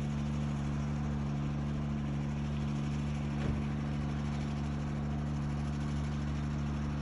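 Steady low hum of an engine running at constant speed, with no change in pitch or level.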